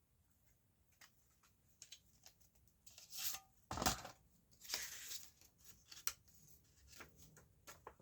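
Paper CD booklet being handled and its pages turned: paper rustling and swishing, with small clicks and one louder thump about four seconds in.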